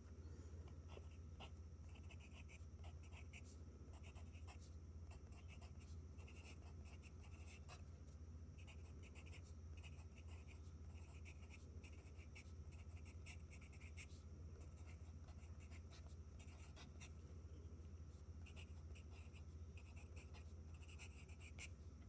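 Pencil writing on paper by hand, quiet: short scratchy strokes in quick clusters, with brief pauses between words. A faint low hum runs underneath.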